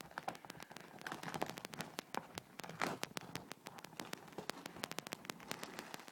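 Packaging of a trading-card hobby box crackling and clicking in quick irregular ticks as it is handled and opened.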